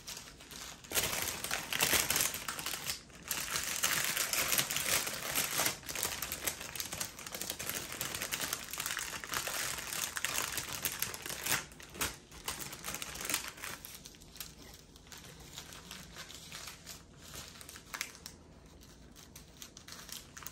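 Clear plastic bags crinkling and rustling as hands sort through small zip-lock bags of diamond painting drills inside a larger plastic bag. The sound is busier and louder for most of the first half and softer from about two-thirds of the way through.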